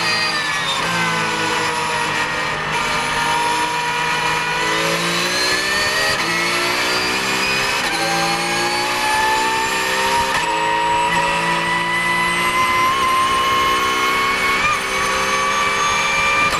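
Porsche 911 GT3 Cup (991) flat-six race engine heard from inside the cockpit, pulling hard on full throttle. The pitch sags for the first few seconds and then climbs. It drops at an upshift about eight seconds in, then climbs steadily again as the car gathers speed.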